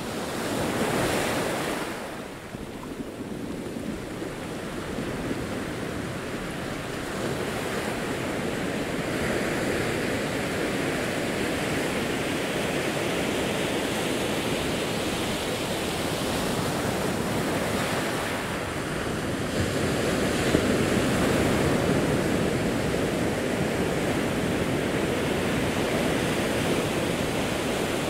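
Ocean waves breaking and washing over a rocky shore, a continuous rushing surf that swells about a second in and again about twenty seconds in.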